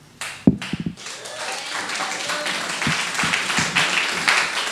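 Audience applauding. The clapping starts after a low thump about half a second in, builds over the next couple of seconds and holds steady.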